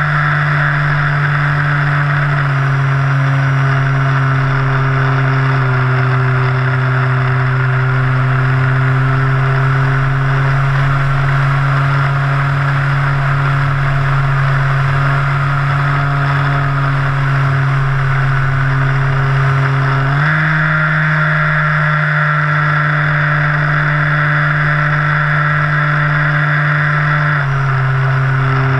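Brushless electric motor and propeller of a radio-controlled plane, heard close up from underneath the plane: a steady droning whine with a rushing hiss over it. The pitch steps down slightly a few seconds in and again around six seconds, jumps up about twenty seconds in, and drops back near the end as the throttle is changed.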